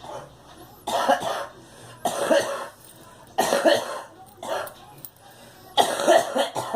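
A girl coughing repeatedly, in short fits of two or three coughs that come about every second and a half.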